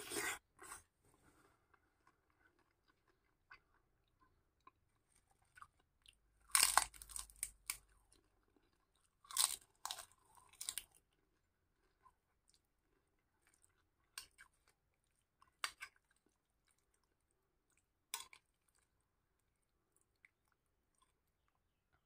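Close-up chewing of a mouthful of kupat lengko: rice cake with raw cabbage and cucumber, crunching in the mouth. Several sharp, louder crunches stand out, the loudest clustered around six to eleven seconds in.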